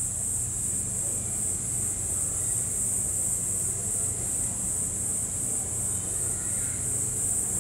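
Steady high-pitched chorus of insects shrilling, with a slight even pulse, over a low steady hum.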